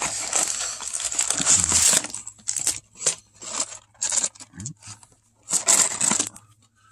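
Cardboard packaging of a Pokémon trading card game collection box being opened by hand: about two seconds of steady scraping and rustling as the box is worked open, then a series of short rustles and light knocks as the contents are slid out and set down.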